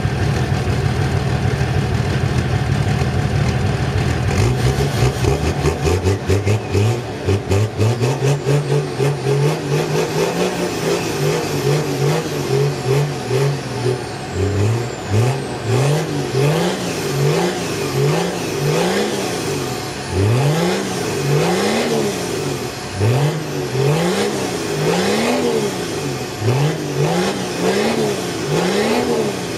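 Inline-six diesel car engine idling, then revved: the pitch climbs a few seconds in, and in the second half the throttle is blipped again and again, the revs rising and falling about once a second.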